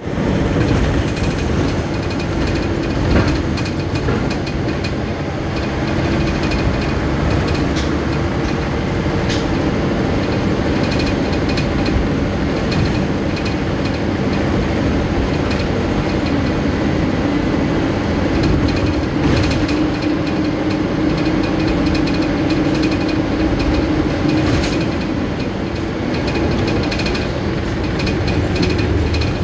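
A road vehicle's engine running steadily, with a continuous low drone and frequent rattling clicks and knocks.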